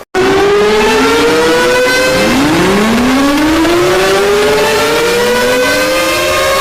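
Several sirens winding up one after another, like civil defense sirens: each tone slides upward and settles at a high steady pitch, the overlapping wails building into a loud, sustained chorus. The sound cuts in abruptly just after a brief silence at the start.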